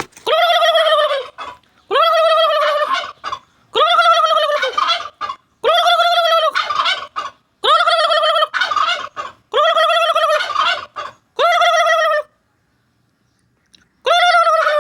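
Turkey calling over and over: about eight pitched calls of about a second each, roughly every two seconds, each starting with a quick drop in pitch, with a short silent gap before the last one.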